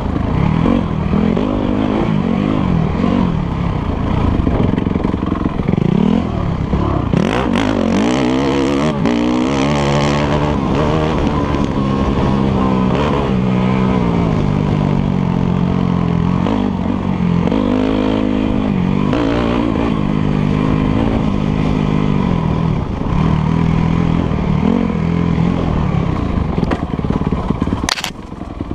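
Enduro dirt bike engine under hard riding, its revs rising and falling again and again as the bike accelerates and backs off. A brief sharp crack near the end.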